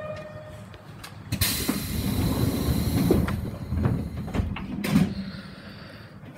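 Sliding passenger doors of a Yamaman Yukarigaoka Line rubber-tyred people-mover car closing at a station stop: a steady tone stops just after the start, a loud hiss of air comes about a second and a half in, then several thuds as the doors shut.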